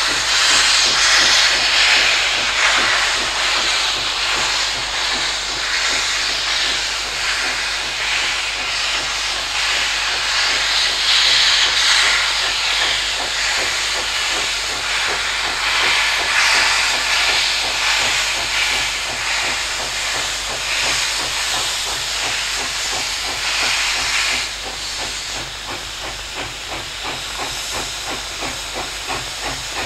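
Steam locomotive hissing steam loudly and unevenly. About three-quarters of the way in, the hiss drops quieter and a regular pulsing beat comes through.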